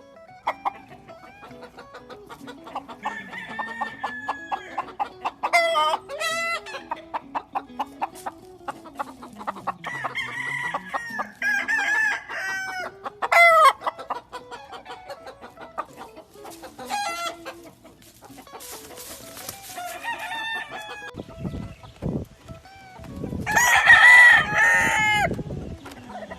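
Gamefowl roosters crowing again and again, with clucking between the crows; the loudest crow comes near the end. A low rumbling comes in near the end.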